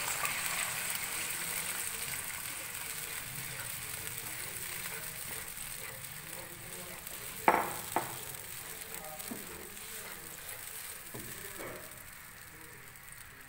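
Onion paste sizzling in hot oil in a kadai as it is stirred with a wooden spatula, just after being added. The sizzle is loudest at the start and dies down gradually. About seven and a half seconds in come two sharp knocks half a second apart.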